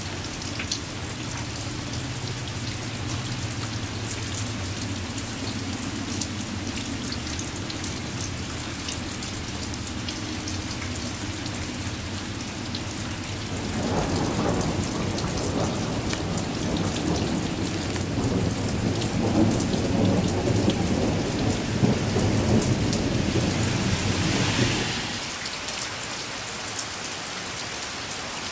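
Steady rain falling during a thunderstorm, with thunder: a low rolling rumble at first, then about halfway through a louder peal of thunder that lasts about ten seconds before dying away.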